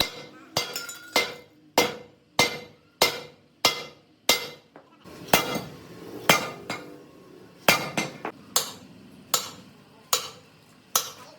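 Hammer blows on metal in a steady, regular rhythm, about one and a half strikes a second, each ringing briefly. There is a short pause near the middle.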